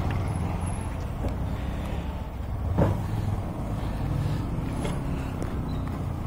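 Steady low rumble of road traffic, with a brief knock about three seconds in.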